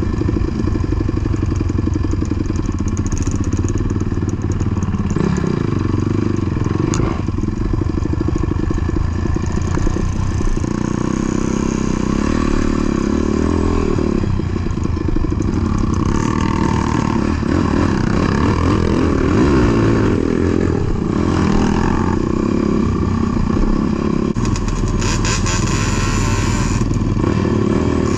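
ATV engine running continuously while being ridden, its note shifting now and then.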